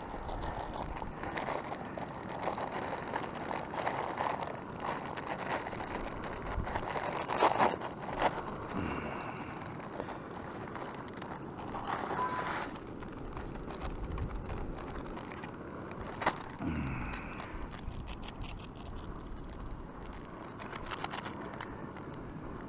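Backpacking canister stove burning with a steady hiss under the pot, with scattered clicks and rustles of handling the cooking gear and noodle packets.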